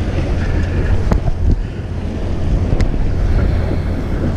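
Wind buffeting the microphone over the steady low rumble of a fishing boat's engine running.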